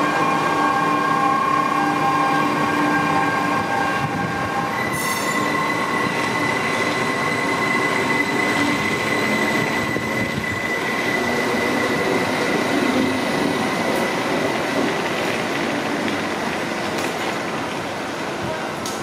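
Train running past with wheels squealing in steady high tones, which shift about five seconds in to a single higher squeal.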